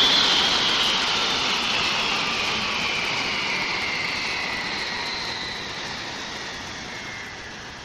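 A loud rush of noise with a whistling band inside it that slides slowly downward in pitch while the whole sound fades steadily away, much like a jet passing and receding.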